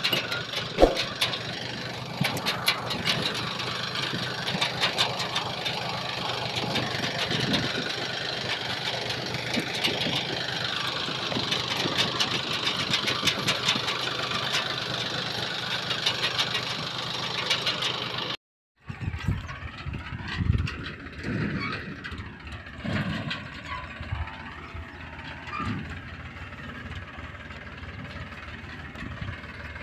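Diesel tractor engine running with an empty steel trolley hitched behind, the trolley clattering and rattling loudly over the engine. About two-thirds of the way through the sound cuts, and the tractor is then heard farther off and quieter as it pulls the empty trolley across the field.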